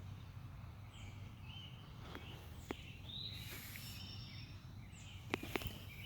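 Wild birds chirping and calling in short repeated phrases over a steady low rumble, with a few sharp clicks, three close together about five and a half seconds in.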